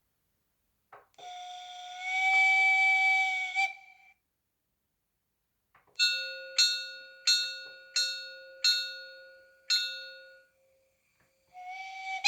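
Steam-locomotive sound effects from the mfx sound decoder of a Märklin H0 BR 94.5-18 model locomotive. A steam whistle blows for about three seconds, then about seven struck, bell-like ringing tones sound at even spacing, each dying away. Another whistle starts near the end.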